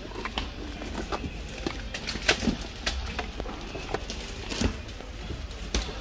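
Several light knocks and clicks of Pringles cans being handled and taken off a supermarket shelf, over a steady low hum of store ambience.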